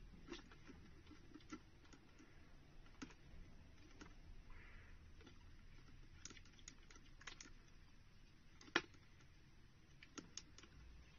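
Faint, irregular small clicks and taps over a quiet background, with one louder click about nine seconds in.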